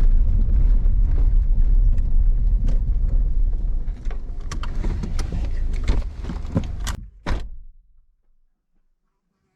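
Vehicle on the move: a steady low road and engine rumble that eases off about four seconds in, followed by a run of sharp clicks and knocks and one last knock just after the sound drops away suddenly.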